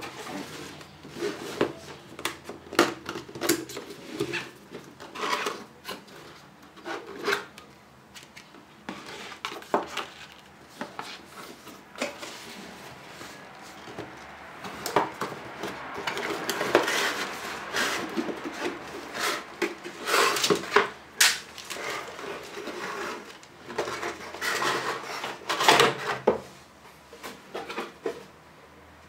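Headphone packaging being opened and handled: scattered clicks and knocks with scraping and rustling, busiest about halfway through.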